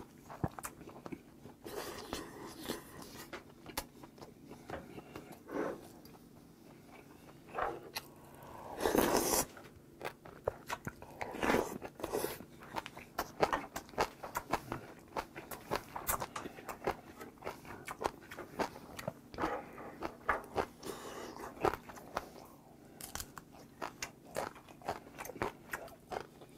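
Close-up eating sounds: chewing and slurping hot blood-sausage and tripe soup from a wooden spoon, many short wet clicks with now and then a brief louder slurp, the longest about nine seconds in.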